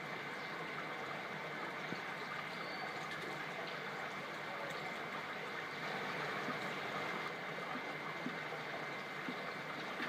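Steady rushing, trickling noise like running water, even throughout, with a faint steady high tone over it.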